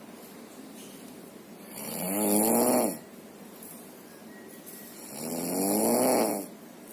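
A sleeping person snoring: two long, buzzing snores about three and a half seconds apart. Each swells over a second or so and then stops abruptly, with a low hiss in between.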